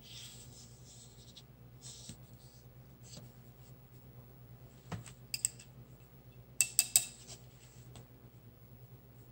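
Light scratching of a fine paintbrush over paper, then several small sharp clicks and taps, the loudest a quick run of three or four about seven seconds in.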